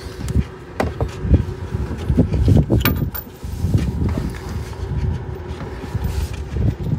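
Close handling noise of gloved hands and a wrench working a hose fitting in a cramped engine bay: rubbing and rustling with scattered sharp clicks and knocks of metal, while a compressor coolant line is connected.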